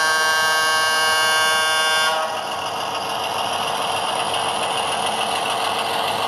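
An ESU LokSound sound decoder in an HO-scale Walthers SW8 switcher plays a diesel locomotive horn through the model's small onboard speaker. The horn is held until about two seconds in. Under it, and on after it stops, the decoder's diesel engine sound keeps running steadily.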